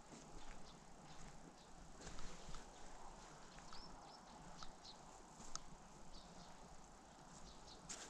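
Quiet pine-forest ambience: faint, scattered high chirps of small birds over a low steady hiss, with soft irregular steps on the dirt track.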